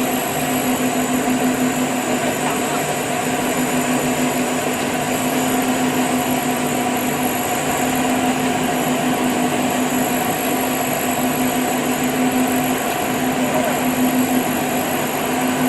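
Cocoa grinding machine running steadily: a constant hum with an even whirring noise over it.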